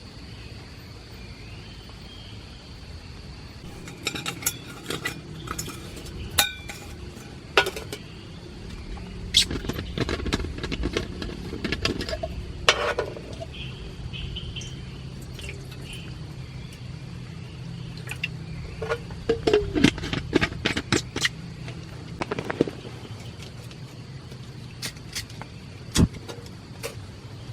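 Metal utensils and cookware clinking and knocking in irregular clusters, as when camp dishes are handled. Underneath runs a steady background hiss and a continuous high insect drone.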